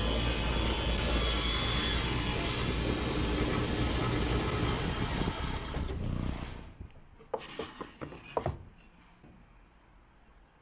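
Table saw running while crosscutting pecan board on a sled, then switched off and winding down about six seconds in, followed by a few short wooden knocks.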